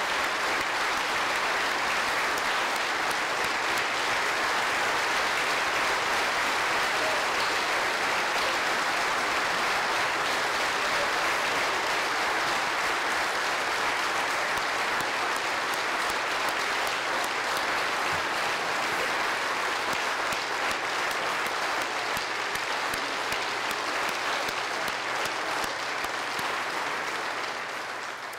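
Long standing ovation: a large crowd clapping steadily, fading out near the end.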